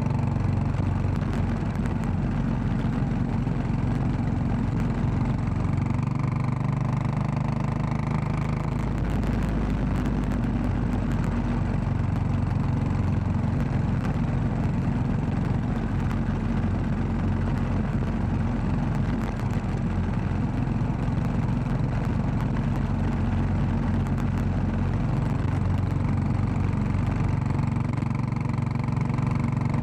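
Royal Enfield Classic 500's single-cylinder engine running steadily under way, with a constant rush of road and wind noise over it.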